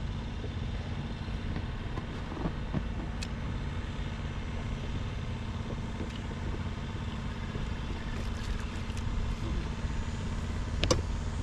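Steady low rumble of wind buffeting the microphone on an open boat, under a faint steady hum. A single sharp click sounds near the end.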